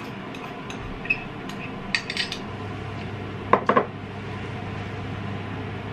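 Metal cutlery and ceramic dishes clinking: a few light taps, then a louder cluster of clinks about three and a half seconds in. A steady low hum starts about two and a half seconds in.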